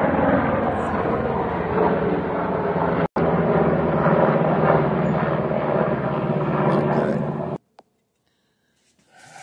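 Low-flying military helicopter passing overhead, its rotor blades beating rapidly under a steady engine noise. The sound breaks for a split second about three seconds in and cuts off abruptly about seven and a half seconds in, leaving near silence.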